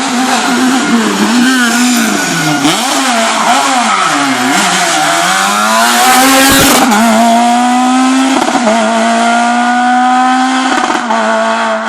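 Super 2000 rally car's naturally aspirated four-cylinder engine at full effort. Its pitch dips and rises again several times through braking and gear changes, then climbs. It is loudest as the car passes close about six to seven seconds in, then holds at steady high revs.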